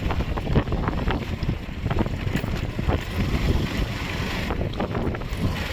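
Wind buffeting the microphone over the rumble of a motorcycle riding a rough, broken dirt road, with frequent knocks and rattles from the bumps.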